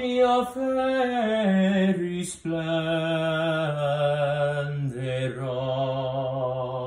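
A man singing an Italian aria unaccompanied in a classical voice: long held notes stepping down in pitch, with quick breaths about two and a half and five seconds in.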